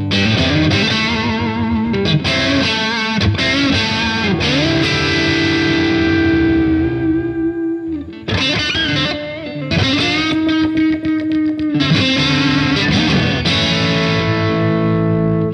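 Electric guitar played through a Demonfx Prince of Sound pedal, a clone of the Analog Man Prince of Tone, set to overdrive mode for a distorted tone with plenty of breakup. Sustained notes are played with bends and vibrato, with a short gap about eight seconds in.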